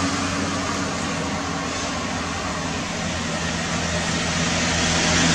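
Steady outdoor background noise with a low droning hum, growing a little louder near the end.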